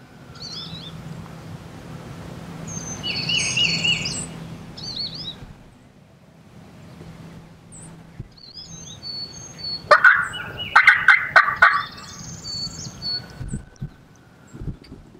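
Wild turkey gobbler gobbling once, a loud rattling call of about two seconds that starts about ten seconds in. Songbirds chirp and whistle faintly around it.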